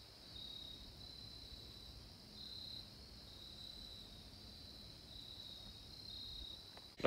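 Crickets trilling in a faint, steady high chorus, several voices overlapping at slightly different pitches. A single sharp click right at the end.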